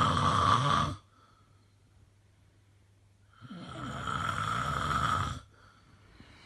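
Snoring in two long rasping strokes. One snore dies away about a second in, and a second, longer snore starts about three and a half seconds in and lasts about two seconds, with quiet between them.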